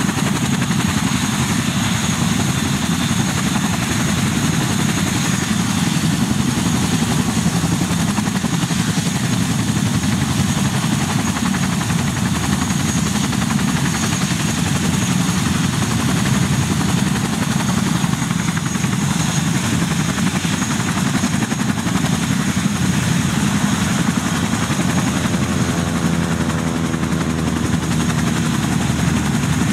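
Boeing CH-47 Chinook on the ground with its twin turboshaft engines and tandem rotors running steadily: a deep, even rumble with a thin high turbine whine above it.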